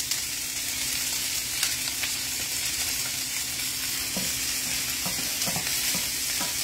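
Brussels sprouts sizzling in hot oil in a frying pan while being stirred with a wooden spatula, with light clicks of the spatula against the pan from about four seconds in.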